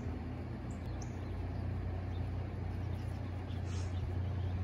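Steady low rumble of outdoor background noise, with a few short, high bird chirps near the start, about a second in and near the end.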